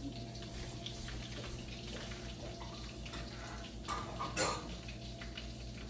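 Quiet kitchen background, a steady low hum with a light hiss, broken by two brief clatters about four seconds in.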